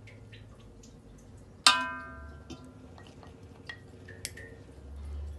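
A metal spoon knocked against the rim of an aluminium cooking pot to shake off masala: a sharp metallic clink about a third of the way in that rings on for about a second, then a lighter ringing clink later, with small ticks of the spoon between.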